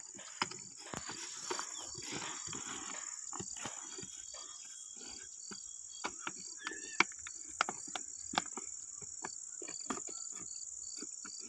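Steady high-pitched insect chorus, with a second insect chirping in short regular pulses about three times a second. Scattered clicks and knocks, and rustling early on, come from a plastic jar being handled on the ground.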